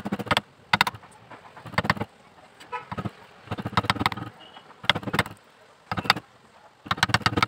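Steel chisel working a wooden block clamped in a metal vise: short bursts of rapid knocking and cracking, about once a second.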